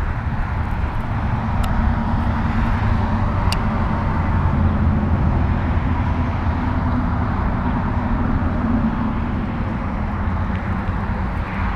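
Wind buffeting the camera microphone: a steady low rumble with no break, and two faint ticks in the first few seconds.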